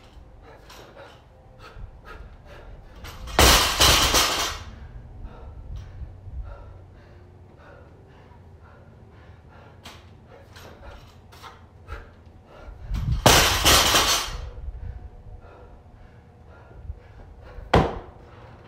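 Barbell loaded to 135 lb with bumper plates dropped onto rubber garage mats after squat cleans, twice about ten seconds apart, each time with a loud crash and rattle lasting about a second. Near the end comes a single sharp thud of feet landing on a wooden plyo box.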